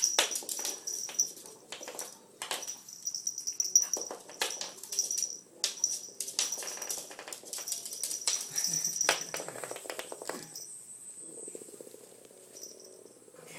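A Hexbug Nano vibrating toy buzzing and rattling across a hardwood floor while a Maltese dog pounces on it, her claws clicking and scrabbling on the boards in many sharp clicks. A thin high whine comes and goes, and a fast fine rattle is heard near the end.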